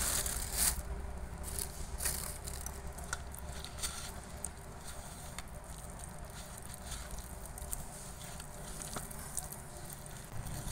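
A hand squishing and kneading a soft mash of boiled pumpkin and gram flour in a glass bowl, soft wet patting and squelching. More gram flour is being worked in to stiffen a mash that has turned watery. A few sharp clicks come in the first two seconds.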